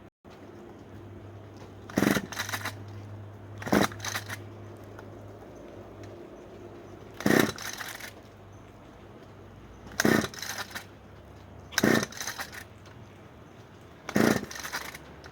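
Pull-start rope of a gas whipper-snipper with a chainsaw attachment yanked six times, the engine turning over briefly on each pull without catching: a cold start that will not fire.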